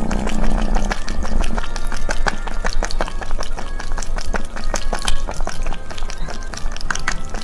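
Cat lapping water from a glass tumbler, close-miked: a quick, even run of small lapping clicks, several a second.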